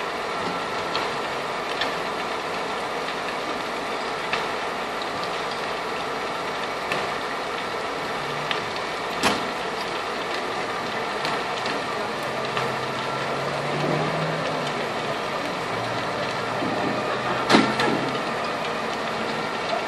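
Fire engine running steadily to drive its pump, with scattered small clicks and two louder sharp cracks, one about halfway through and the loudest near the end.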